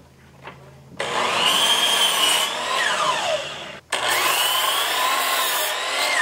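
DeWalt miter saw cutting wooden boards twice. The motor starts with a loud high whine about a second in, runs through the cut, and the whine falls steeply as the blade spins down. The second cut comes straight after and ends the same way near the end.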